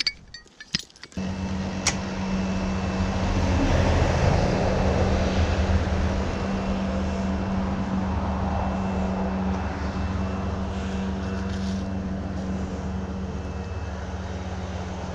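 A motor engine running steadily with a low, even drone. It comes in abruptly about a second in, after a few light clicks.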